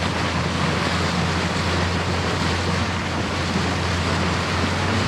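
Speedboat engine running at a steady low hum, with wind on the microphone and water rushing past the hull.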